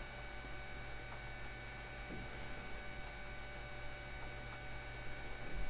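Steady low electrical mains hum with faint steady whine tones in the recording's background, with a few faint clicks and a soft low bump near the end.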